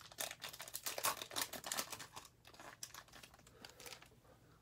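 Bowman baseball card pack's wrapper being torn open and crinkled in the hands: a quick run of crackles that thins out after about two and a half seconds.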